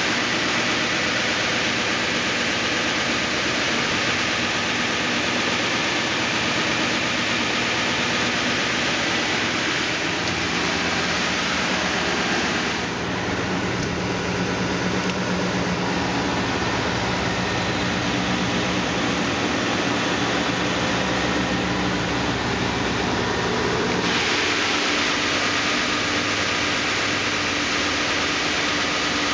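Northtech 24-inch planer sander running without stock, its helical planer head spinning with a steady whirring hiss. From about 13 s to 24 s the hiss drops away and a low hum comes forward, then the hiss returns.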